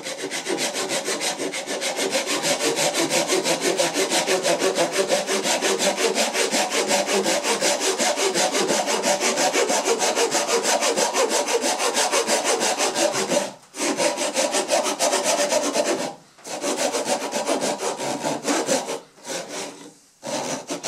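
Japanese handsaw cutting across the grain to set the shoulder of a tenon, with quick, even strokes. The sawing breaks off twice about two-thirds of the way through, then goes on in shorter runs of strokes; the shoulder cut is not yet quite through.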